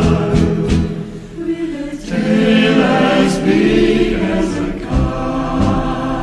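Music with a choir singing, no distinct words, with occasional sharp percussive strikes.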